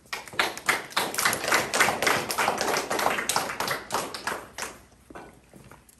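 A small audience clapping, a dense run of many hands that thins out and stops near the end.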